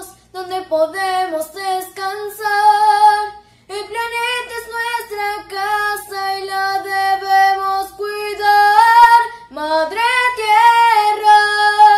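A young girl singing solo in Spanish without accompaniment, with long held notes broken by short breaths, and a rising slide into a note about ten seconds in.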